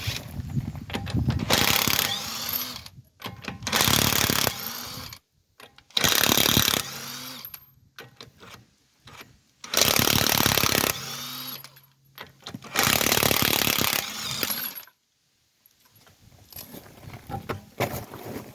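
Impact wrench run in five short bursts, each one to one and a half seconds long, typical of spinning off a wheel's lug nuts one after another.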